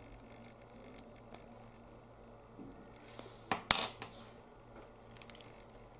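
Faint small clicks, then a metal key blade clinking down onto a wooden table: two sharp knocks close together a little past halfway, the second louder and ringing.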